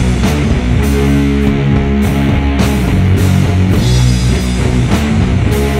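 Loud rock music with guitar and drums: held low notes under steady cymbal strikes.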